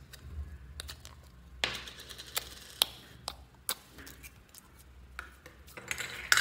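Thin clear plastic slime container clicking and crackling as it is opened and squeezed to push out yellow slime: a string of sharp clicks with a short crinkly stretch, and the loudest crackle near the end.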